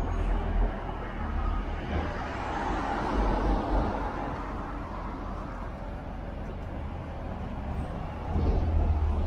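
City street traffic: motor vehicles running and passing, with a swell about three seconds in and a louder low engine rumble near the end.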